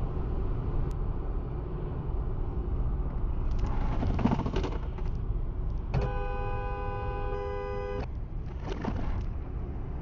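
Steady road and engine rumble inside a car at highway speed, with a car horn held for about two seconds past the middle. There are brief rushing noises before and after it.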